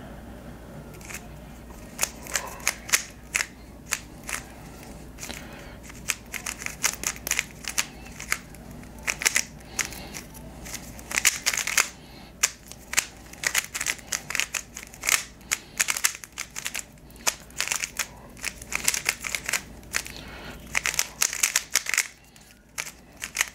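Moyu YS3 M ball-core 3x3 speed cube being turned fast during a solve: quick runs of plastic clicking and clacking as the layers snap round, in bursts with short pauses between them. The cube is lubed with Vortex on the core and Controlius and Martian on the pieces, and is still breaking in.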